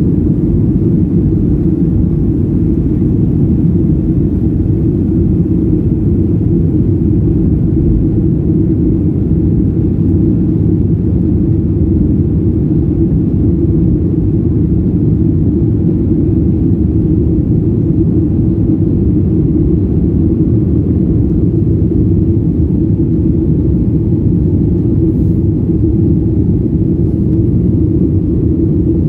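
Cabin noise inside a Boeing 737-800 at takeoff: its CFM56-7B jet engines at takeoff thrust and the rushing air make a loud, steady low rumble through the end of the runway roll and into the climb.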